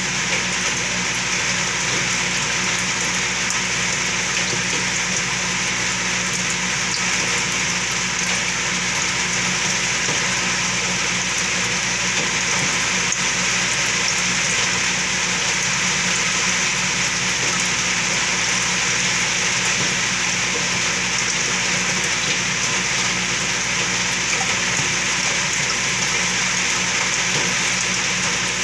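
Saltwater aquarium water circulating: a steady rush of moving, bubbling water with a low, even pump hum underneath.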